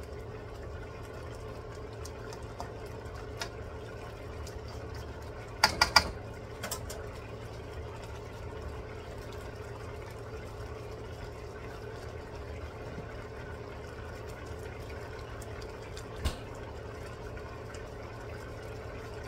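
Squid and vegetables in a little broth simmering in a wok, a steady bubbling hiss. About six seconds in, three sharp knocks come in quick succession, and one more follows about sixteen seconds in.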